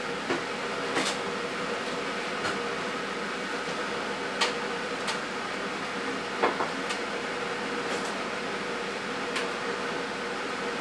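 A steady background hum with light clicks and taps scattered irregularly through it, the two sharpest about four and a half and six and a half seconds in, from hands handling a fabric curtain swag and its board while fitting it onto Velcro.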